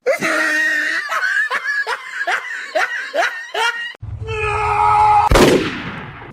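A person laughing hard in a quick run of short, falling "ha"s for about four seconds. A louder sound that sweeps down in pitch follows near the end.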